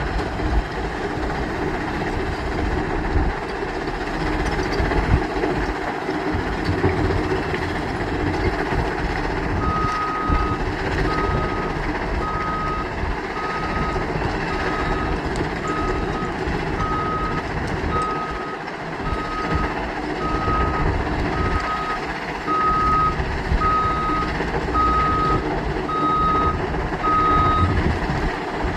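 Heavy construction machine's engine running steadily, with its reversing alarm beeping about once a second from about a third of the way in until shortly before the end.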